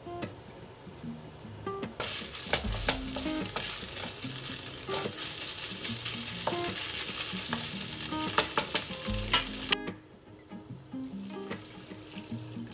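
Ground meat and bean pastes sizzling in a frying pan while a wooden spatula stirs and scrapes them, with scattered clicks. The pastes are being fried with the meat until fragrant. The sizzle starts about two seconds in and cuts off abruptly near the end.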